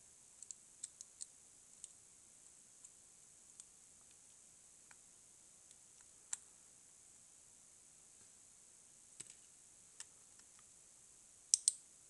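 Faint, scattered clicks of a lock pick working the pins inside a brass Russwin lock cylinder: a few small ticks in the first second or so, a sharper click about six seconds in, and the loudest cluster of clicks near the end.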